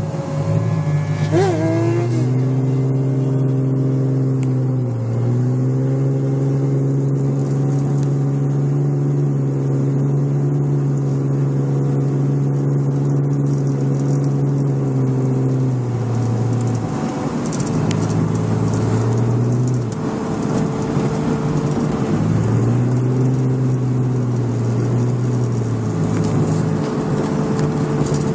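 Car engine and road noise heard from inside the cabin at cruising speed: a steady drone that holds its pitch. It fades away for several seconds past the middle, as if off the throttle, then comes back.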